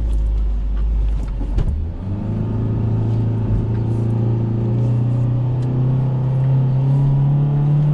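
Tata Harrier's 2.0-litre four-cylinder diesel engine pulling under throttle through sand. A deep rumble in the first two seconds gives way to a steady engine note that climbs slowly in pitch as the revs rise.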